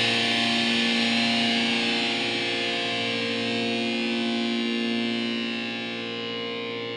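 Atmospheric black metal with a held, distorted electric guitar chord ringing on with effects and slowly fading, with no drum hits.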